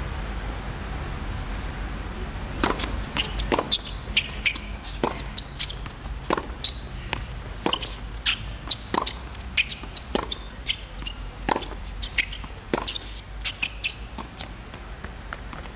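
Tennis rally on a hard court: sharp knocks of the ball struck by rackets and bouncing on the court, about one a second, starting about two and a half seconds in.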